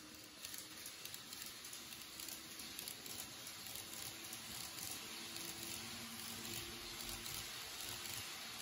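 Model 583 series train running along the track: a steady rattling hiss of wheels over the rails and joints with a faint motor hum, growing a little louder as it comes closer.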